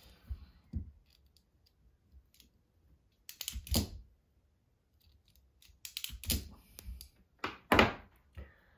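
Pliers and a stranded wire being handled on a workbench as the bare wire ends are twisted tight: a few scattered bursts of clicking and rustling, the loudest near the end.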